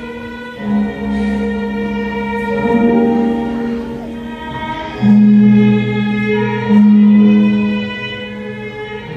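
Slow classical music played on bowed strings: long held notes that change every second or two, swelling louder about halfway through and again a little later.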